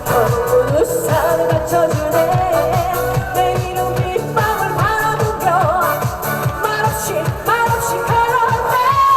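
Trot medley: a woman singing live over a backing track with a steady, even dance beat.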